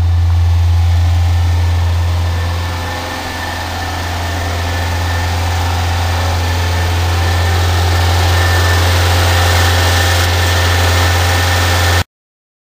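Renault 4 GTL's four-cylinder engine idling steadily, just cold-started after two and a half months standing unused in deep snow and frost. The sound cuts off abruptly near the end.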